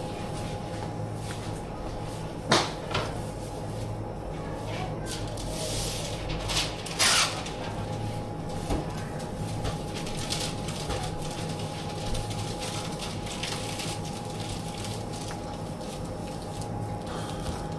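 Supermarket shop floor: a steady hum with a few sharp knocks and rustles from handling at the counter. The sharpest knock comes about two and a half seconds in, and a rustling clatter follows around seven seconds.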